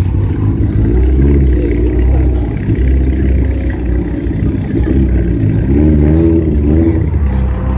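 Rally car engine running hard over a deep rumble, its pitch swinging up and down as it revs, with the strongest revving about one to two seconds in and again near the end.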